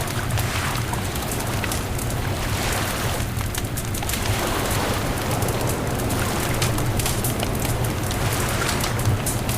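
Beach bonfire crackling, with many sharp pops scattered through. Underneath is a steady low rumble.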